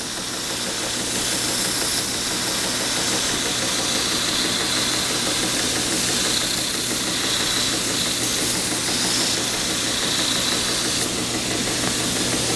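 A 6-inch edge sander running steadily, its motor hum under the hiss of the abrasive belt. Plywood is pressed against the belt, so the sanding hiss brightens and fades several times.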